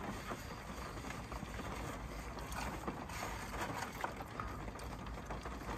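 Steady low rumble and hiss of a car cabin, with no distinct events.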